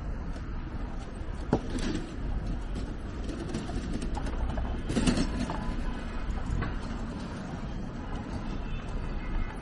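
Busy street ambience: a steady low traffic rumble with scattered clicks and clatter, a sharp knock about one and a half seconds in, and a louder noisy swell about five seconds in.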